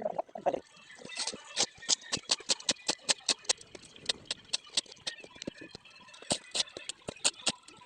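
A quick, steady run of sharp knocks or taps, about four or five a second, starting about a second in.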